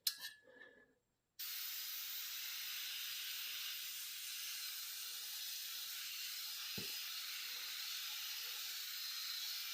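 Aerosol can of degreaser spraying in one long steady hiss that starts abruptly about a second and a half in, with a faint knock near the end.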